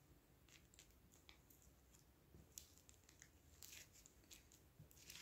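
Near silence with faint, scattered rustles and ticks of paper being handled: fingers pressing and smoothing tracing paper laid over carbon paper on fabric.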